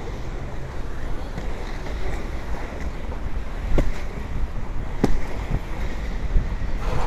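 Wind rushing over the microphone while inline skate wheels roll over pavement, a steady low rumble, with two sharp clicks about four and five seconds in.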